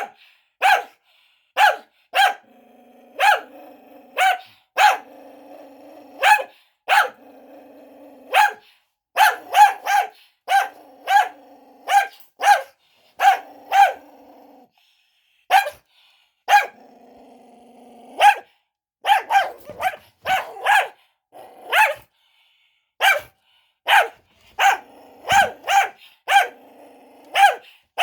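A cockapoo barking sharply and repeatedly, roughly once a second and sometimes in quick pairs, with a rumbling growl between many of the barks and a short break about halfway through. This is aggressive barking and growling in a fit the owners call cocker rage.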